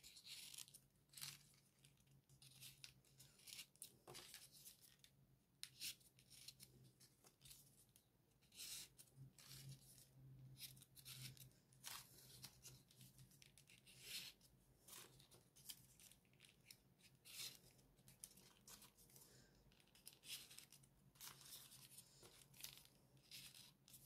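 Folded paper modules of a 3D origami figure rustling and scraping as they are slotted onto one another: faint, irregular, short crinkles.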